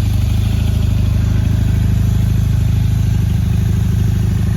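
1983 Honda CM450's parallel-twin engine idling steadily, smooth and quiet: the horrible knocking noise has been cured.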